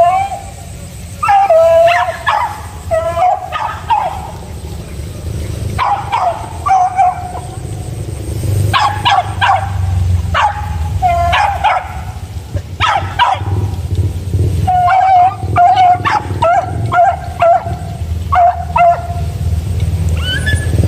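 Hunting dogs, beagles and village dogs, baying and yelping in repeated bouts of high, drawn-out cries with short pauses between them: the cry hounds give while working a scent during a mongoose hunt.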